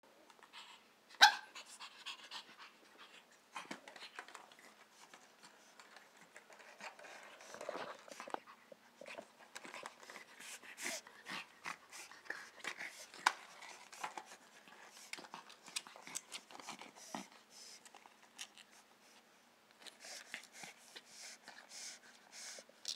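Pug panting, with many small clicks and smacks as it moves about and chews, and one sharp, loud sound about a second in.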